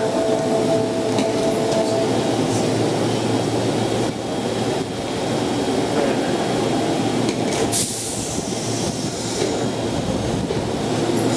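Osaka Municipal Subway train standing at the platform with its onboard equipment running: a steady hum and hiss with a few faint tones early on. A sharp click about eight seconds in is followed by a short hiss.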